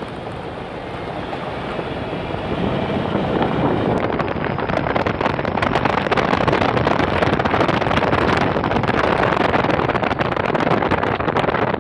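Wind rushing over the microphone with the noise of a vehicle moving along a paved road, growing louder about three to four seconds in and then staying steady.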